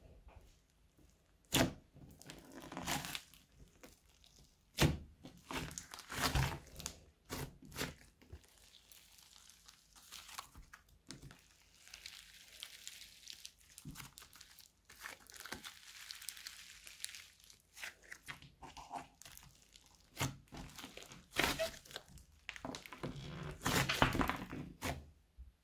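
Hands squeezing, pressing and stretching a thick lump of clay slime: sticky squishing with scattered sharp pops and clicks, and a stretch of fine crackling in the middle as the slime is pulled apart.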